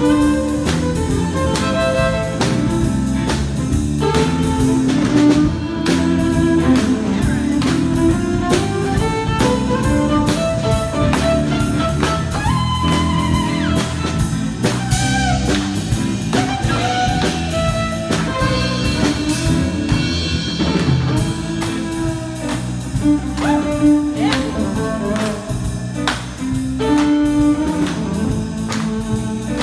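Amplified violin playing a bowed melody with slides, over a repeating backing with a steady beat from a looper pedal.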